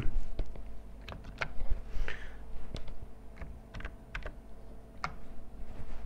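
Computer keys clicking: a dozen or so irregular single keystrokes with short gaps between them, over a faint low hum.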